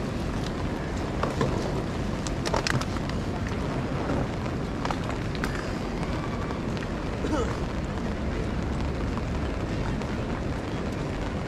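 Wind buffeting the microphone as a steady low rumble, with a few scattered short ticks.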